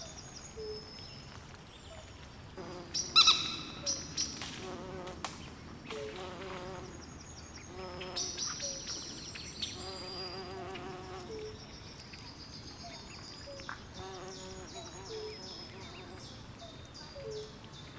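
Swamp chorus of frogs and insects: rapid high chirps repeating throughout, with low pulsed frog trills coming and going. One loud call stands out about three seconds in.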